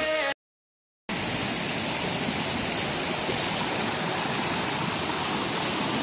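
A song cuts off just after the start, then after a moment of silence the steady rush of a small waterfall cascading over rocks into a stream pool.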